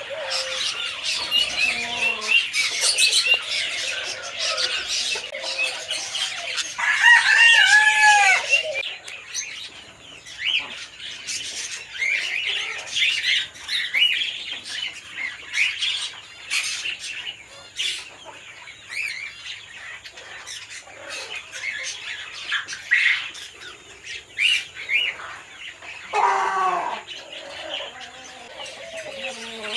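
Small birds chirping and twittering throughout. A rooster crows loudly once about seven seconds in. Near the end comes another drawn-out call that falls in pitch.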